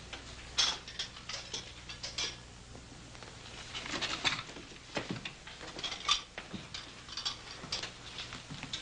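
Small handling sounds: an irregular run of light clicks, taps and rustles, with sharper knocks about half a second in and about six seconds in.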